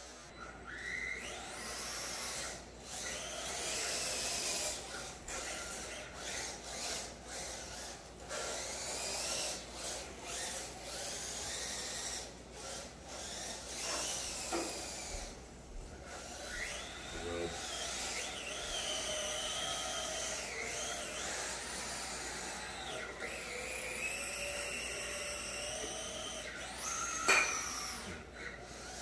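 Electric motors of RC drift cars whining, their pitch rising and falling again and again with the throttle. A single sharp knock sounds near the end.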